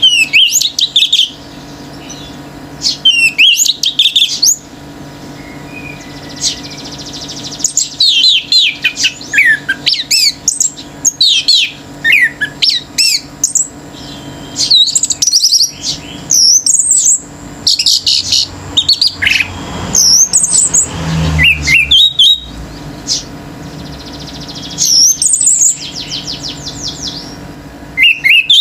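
Orange-headed thrush singing: bursts of loud, varied whistled phrases full of quick up-and-down slides and rapid trills, separated by short pauses. A brief low rumble comes about three-quarters of the way through.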